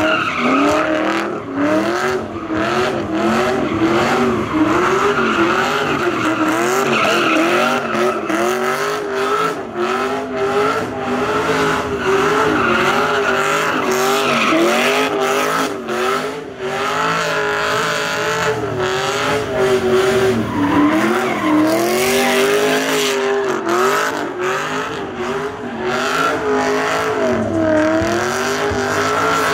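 Pontiac G8 doing a burnout: the engine note keeps rising and falling with the throttle while the spinning rear tyres squeal.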